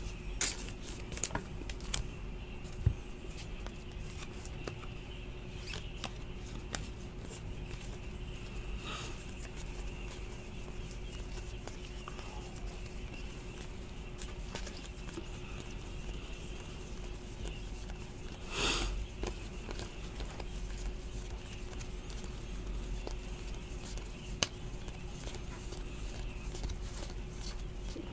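Faint handling of trading cards and their plastic wrapping: small clicks and ticks, with a brief rustle about two-thirds of the way through and a single click near the end, over a faint steady hum.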